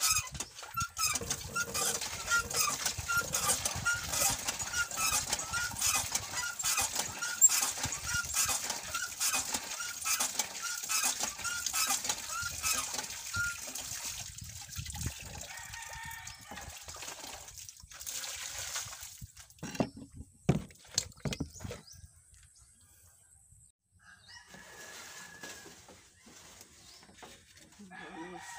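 Hand water pump being worked, its handle squeaking with each stroke about twice a second over splashing water for about fourteen seconds. Then water splashes as hands are rinsed over a bucket, followed by a few sharp knocks.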